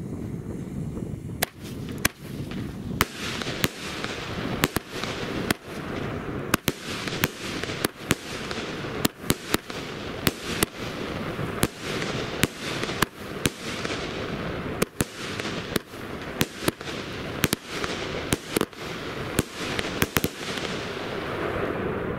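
Pyromax Volta, a 19-shot 30 mm fireworks battery, firing shot after shot: sharp bangs of launches and bursts one to two a second, with crackling and hissing effects between them. The bangs stop a little before the end while the crackle dies away.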